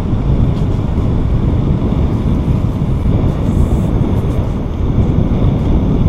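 Wind buffeting the microphone on a moving bicycle: a loud, steady, low rumble.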